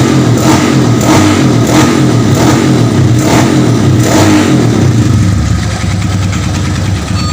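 Honda Tiger 200 cc single-cylinder four-stroke engine in an old trail bike, running loud and revved in quick regular blips, then settling to steady running about five seconds in. It pulls cleanly, running smoothly after a bent valve was replaced.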